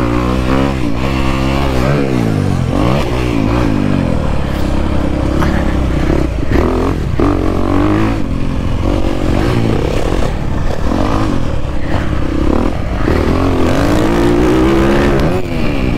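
Dirt bike engine revving up and down again and again as it is ridden hard around a motocross track, with a few short knocks along the way.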